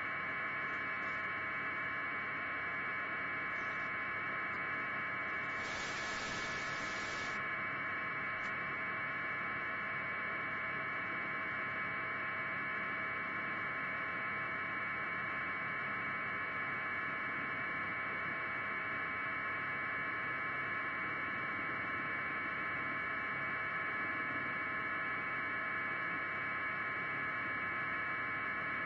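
Steady electrical hum and hiss with several fixed high tones and no speech, broken once about six seconds in by a burst of static lasting about a second and a half.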